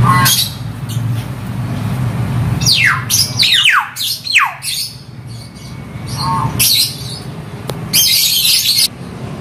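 Hill myna (beo) calling in its cage with a shrill voice: a harsh screech right at the start, a run of several steeply falling whistles about three to four seconds in, a short call around six seconds in, and a long harsh screech about eight seconds in.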